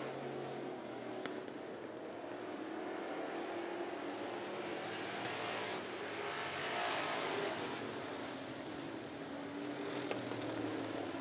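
A pack of classic-class dirt track race cars running laps under race power. The sound of the engines swells as the cars pass nearest, about six to seven seconds in.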